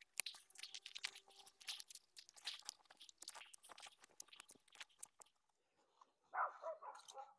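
Dry plant material crackling and snapping in many small irregular crackles as dead roots and old stalks are pulled and torn out of a perennial clump by hand. A short yelping sound comes near the end.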